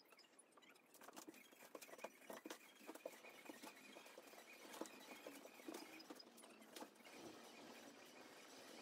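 Faint, irregular patter of light taps and rustles from sock feet and hands moving on a foam exercise mat during a bodyweight workout.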